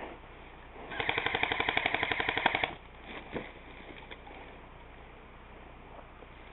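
Automatic airsoft gun firing one rapid burst of about two seconds, roughly twelve shots a second, followed shortly by a single faint click.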